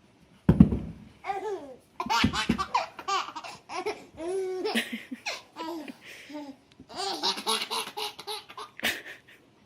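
A baby laughing in repeated short bursts of giggles and belly laughs, with a thump about half a second in.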